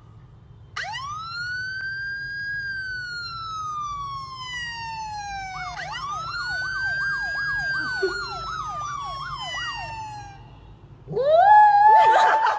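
A siren sound: a long wail that rises and then slowly falls, then a second wail with a fast warble of about three wobbles a second running through it. Near the end a small white poodle howls along, a rising, held howl that is the loudest sound.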